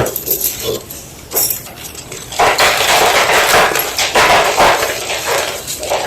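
Homemade gym chalk block being crushed: a sharp crack about a second and a half in, then a dense run of crumbly crunches.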